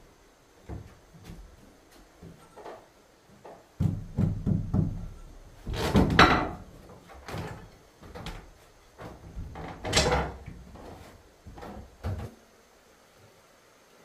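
Wooden boards being handled and fitted, giving irregular knocks and thuds, with two louder, sharper knocks about six and ten seconds in.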